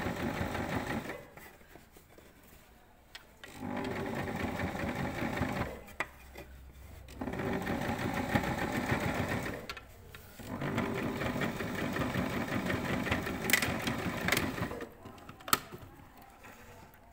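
Electric domestic sewing machine stitching an understitch through thick layers of fabric, run in four bursts of a few seconds each with short stops between. It stops near the end, followed by a single sharp click.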